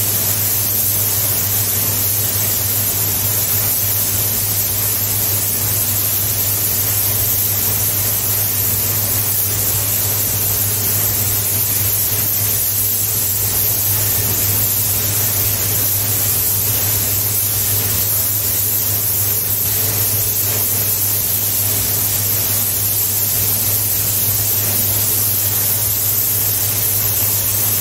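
Gravity-feed compressed-air paint spray gun hissing steadily as it lays a coat of black paint, over a steady low hum from the paint booth's exhaust fan.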